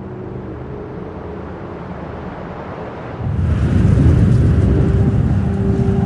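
Steady low rumble of a vehicle under way, which gets suddenly louder a little over three seconds in. Steady held tones join it near the end.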